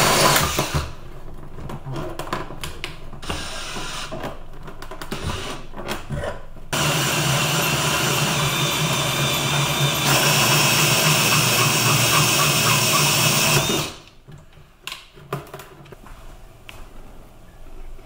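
Power drill with a hole saw cutting through a clear plastic cover. It runs in short broken stretches at first, then cuts steadily for about seven seconds and stops about fourteen seconds in, leaving only a few faint clicks.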